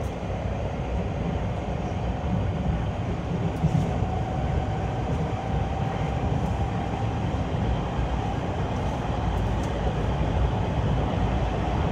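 JR West 223 series 5500-subseries electric train with Mitsubishi traction equipment running, heard from inside the car: a steady low rumble of wheels on track, with a faint motor whine slowly rising in pitch as the train picks up speed.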